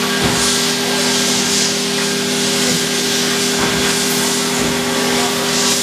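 Haas EC-400PP horizontal machining center powered up and running: a steady mechanical hum with a couple of held tones over a constant hiss that swells now and then.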